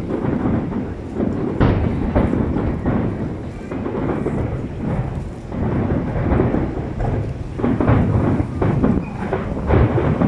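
Aerial firework shells bursting in quick succession: a continuous rolling boom, with several sharper cracks standing out.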